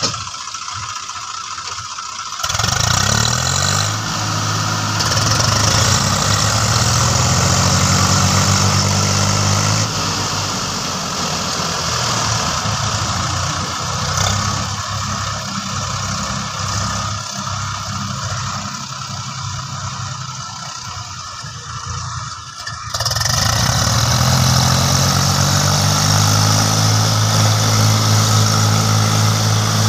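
Swaraj 744 tractors' three-cylinder diesel engines working hard under heavy load, hauling a tractor and loaded trolley through deep mud. The engines rev up about two seconds in, run lower and rougher through the middle, then rev up again near the end.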